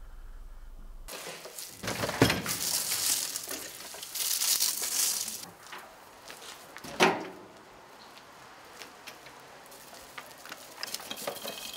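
Clatter and rustling as a wheelchair is handled and lifted down from the back of a small truck, with two sharp knocks, about two and seven seconds in, and stretches of rustling noise between them.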